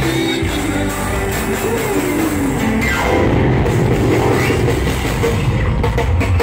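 Loud live band music from a stage show, with a heavy low beat and a melody line that slides up and down.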